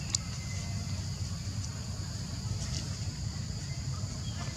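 Outdoor ambience: a steady high drone of insects over a low rumble, with a few faint clicks.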